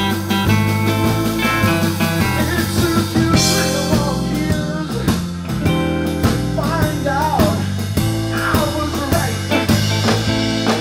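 Live blues band playing: electric guitar over keyboard, bass guitar and drums, with notes bent and wavering in the middle of the phrase.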